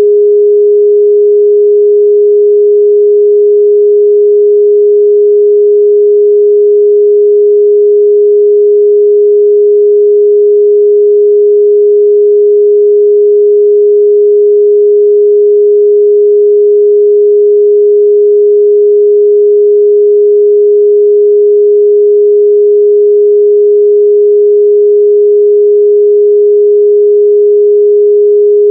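A pure 414 Hz sine-wave test tone, held steady at a constant level.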